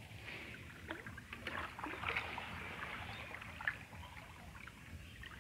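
Shallow water splashing and sloshing in small, irregular splashes around a child's feet as he wades through floodwater.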